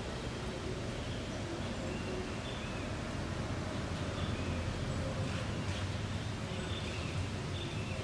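Steady low rumble of city background noise, with several faint, short chirps of small birds scattered through it.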